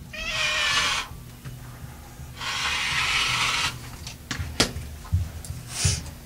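Rotary cutter slicing through layered quilting fabric along a ruler on a cutting mat: two cuts of about a second each. A sharp click follows, then a few soft knocks as the ruler and cutter are handled.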